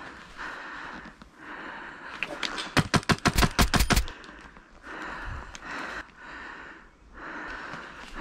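Airsoft rifle firing a rapid full-auto burst of a little over a second, about three seconds in, with a few lighter shots just before it. Hard breathing comes and goes before and after the burst.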